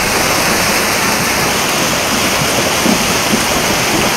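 Fast, deep floodwater rushing down a street in a steady, loud torrent of churning water noise.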